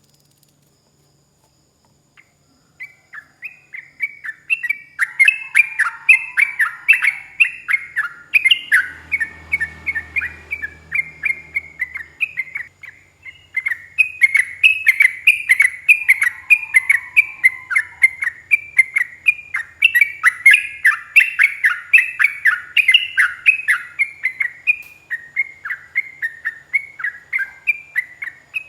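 Yellow-vented bulbul (trucuk) singing a long, unbroken run of quick, short chattering notes, several a second, starting about two seconds in.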